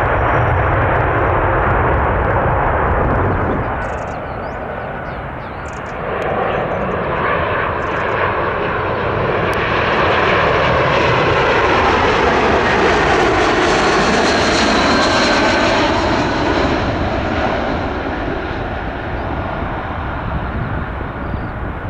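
Jet airliner landing: a British Airways Airbus A321 on approach, its engine noise swelling from about six seconds in, loudest in the middle, then fading. Before that, the tail end of a Boeing 787-8's landing cuts off about four seconds in. Low wind rumble on the microphone throughout.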